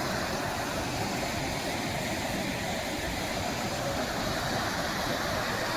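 Waterfall pouring over rock: a steady, even rush of falling water.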